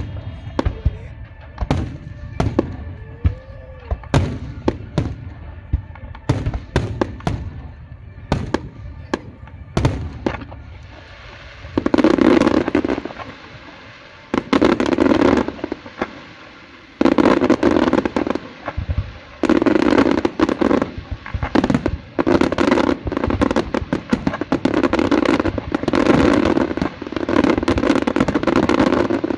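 Fireworks display: a quick run of separate sharp bangs, then from about halfway in, dense crackling volleys of a couple of seconds each, with short breaks between them.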